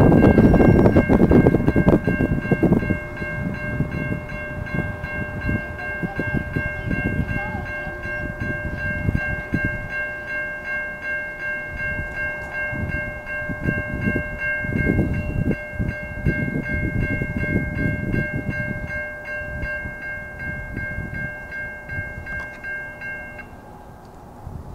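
Railroad crossing warning bell ringing steadily as the four-quadrant gates lower, the signal that a train is approaching, then cutting off near the end once the gates are down. A loud low rumbling noise sits under the bell at the start and fades away.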